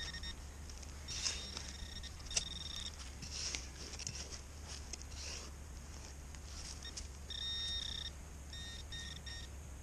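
Metal detector beeping on a buried target, a nail: a few short high tones, a longer tone about seven seconds in, then a quick run of short beeps near the end.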